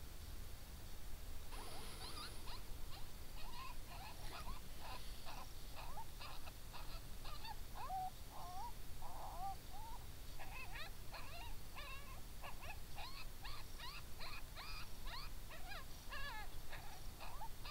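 A pack of coyotes yipping and howling together: many rapid overlapping yips and wavering howls, starting a second or two in and going on nearly to the end.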